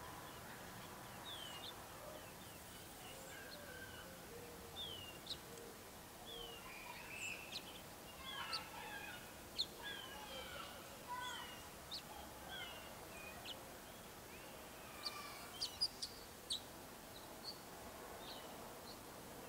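Gambel's quail chicks peeping while brooded under the hen: many short, high, downslurred peeps, scattered irregularly and thickest through the middle, with a few fainter lower notes, over a steady outdoor hiss.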